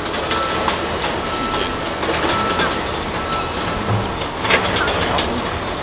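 Steady mechanical rumble of heavy machinery running, with thin, high metallic squeals over it and a few sharp clicks.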